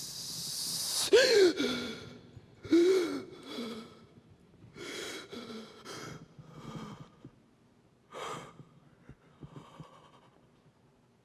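A young woman's voice making wordless dramatic sounds. A long hiss of breath swells, then come two short moaning cries that fall in pitch, then a series of fainter panting breaths and gasps. These are acted sounds of captives' suffering in a slave ship's hold.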